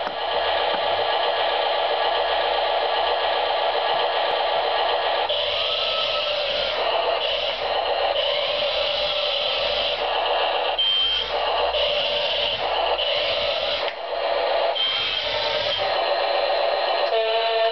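Remote-control toy excavator's built-in electronic sound effects through its small, tinny speaker: a steady buzzy engine drone, joined from about five seconds in by louder bursts that start and stop. Near the end comes a two-note electronic beeping.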